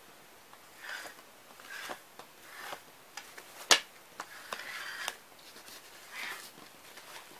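A cartoon-style messenger bag being handled and turned over on a table: scattered rustles and scrapes of its fabric and strap, with one sharp click a little past the middle.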